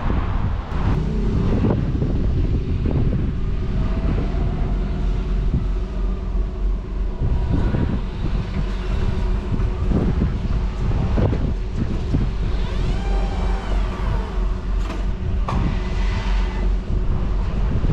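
Motor vehicle on the move, heard from inside: a steady low rumble with a faint engine hum, scattered knocks and rattles, and a brief squeal about two-thirds of the way in.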